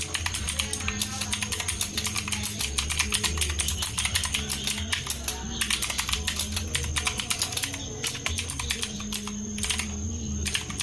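Fast typing on a Marvo Scorpion KG901 mechanical keyboard: a rapid, uneven run of key clicks that thins out near the end.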